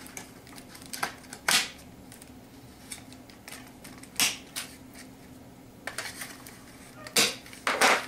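Pocket knife cutting a small plastic toy car free of its cardboard packaging tray: scattered sharp clicks and short scrapes of the blade on plastic and cardboard, about seven in all, the loudest two near the end.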